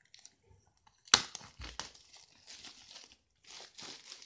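Clear plastic shrink-wrap being torn and pulled off a hardcover comic book, with one sharp, loud tear about a second in followed by bursts of crinkling.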